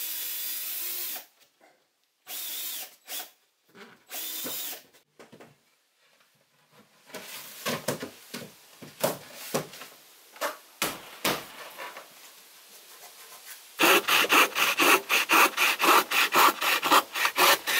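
A power drill whirs in three short bursts early on, then boards knock and tap as they are fitted. Near the end a handsaw cuts a board with fast, even strokes, about five a second, and this is the loudest part.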